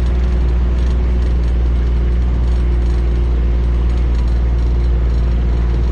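Diesel engine of a small farm vehicle running steadily while driving along towing a trailer, with a light mechanical rattle throughout.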